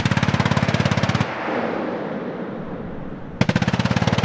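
Avenger air defense system's .50-calibre M3P machine gun firing at a very rapid rate: one long burst of about a second and a half that echoes as it dies away, then a second burst starting near the end.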